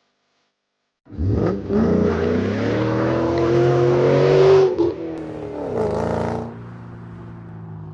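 Pickup truck engine coming in suddenly about a second in and revving with a rising pitch, then dropping back near the five-second mark and settling to a quieter steady run.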